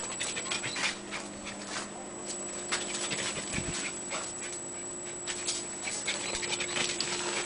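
A dog panting, short noisy breaths a few times a second, over a faint steady hum.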